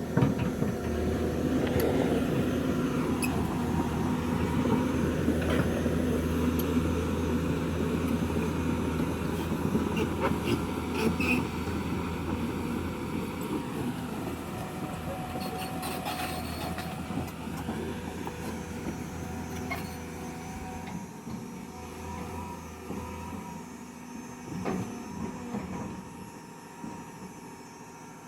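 Hydraulic excavator at work: the diesel engine runs steadily under load while a hydraulic whine rises and falls in pitch, with a few sharp knocks. It grows gradually fainter over the last several seconds.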